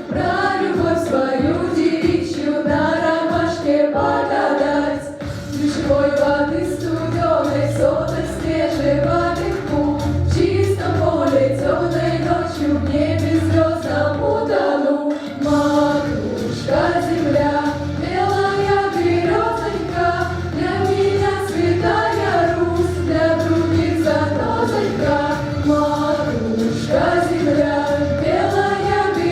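School vocal ensemble singing a song together in several voices, with sustained, bending melodic lines throughout.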